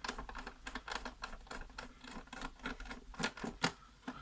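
T10 security Torx screwdriver unscrewing a screw from the plastic base of a coffee machine: a run of small, irregular clicks and scrapes of metal bit on screw and plastic, with a couple of louder clicks near the end.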